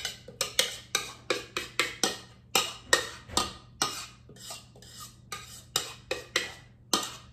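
Spatula knocking and scraping against a mixing bowl while a wet zucchini mixture is scraped out into a glass baking dish: a quick run of sharp clacks, about three a second.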